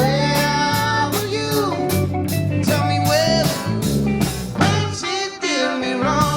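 Live rock band playing a bluesy song: electric guitar lines that slide up and down in pitch over bass and drums keeping a steady beat.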